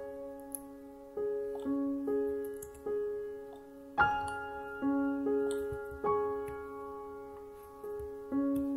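Soft, slow background piano music: single notes and chords struck every second or so, each dying away.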